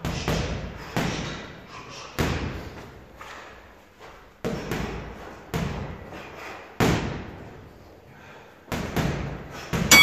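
Boxing-gloved punches landing on a hanging heavy bag: about ten thuds, unevenly spaced and some in quick pairs, each ringing out briefly. At the very end a steady electronic ringing tone starts, the round timer's bell ending the round.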